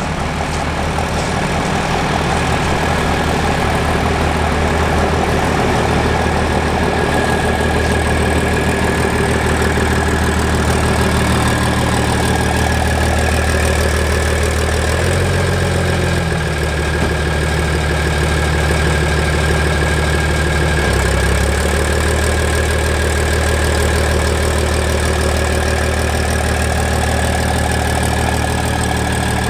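Diesel drag truck engine idling steadily, its pitch shifting a few times midway, with a steady high whine over it.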